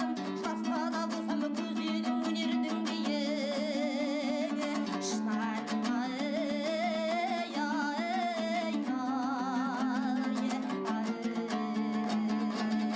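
Background music: plucked string instruments carrying a melody with a wavering, vibrato-like line.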